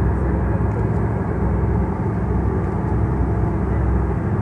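Whale-watching boat's engine running with a steady low drone, under a haze of wind and sea noise.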